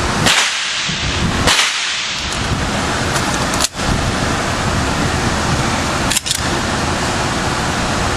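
Gunshots: two sharp shots about a second apart near the start, then two more spaced a few seconds apart, over a steady rushing background noise.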